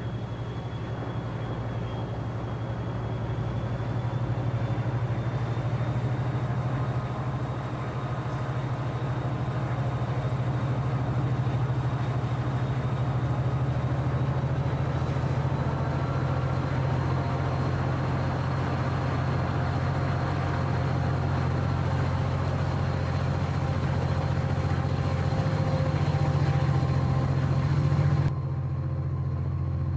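Railway locomotive running with a steady low drone. Near the end the sound changes abruptly and loses its hiss.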